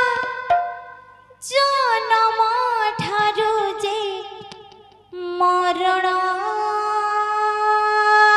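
A woman singing solo into a microphone, with no drum or instrumental backing: two long sung phrases. The first comes in about a second and a half in, wavers through bending ornaments and fades away. The second starts abruptly a moment later and holds steady notes that step upward twice.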